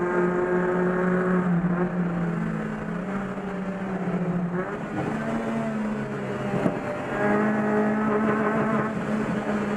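Chevrolet Corsa race car's engine heard from inside the cabin, running hard at high revs. Its pitch drops and climbs again at gear changes, about halfway through and again about two-thirds of the way in, with a short knock just before the second change.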